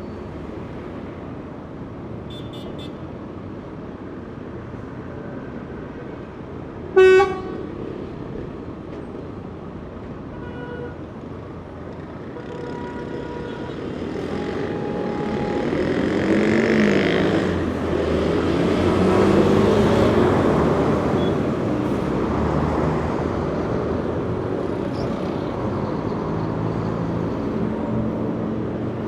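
Busy city street traffic, with a steady hiss of tyres and engines. A single short, loud car horn blast comes about seven seconds in, with fainter horn toots before and after. Midway, a vehicle's engine grows louder as it passes close, peaks, then slowly fades back into the traffic.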